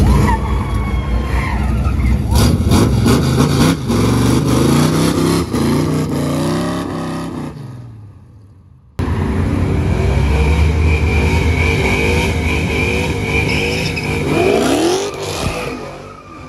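Chevrolet Chevelle SS V8 accelerating hard, its pitch climbing in several rising sweeps as it pulls away and fades into the distance. After a sudden break about halfway, other cars are running, with a steady high squeal for a few seconds and a sharp rising rev near the end.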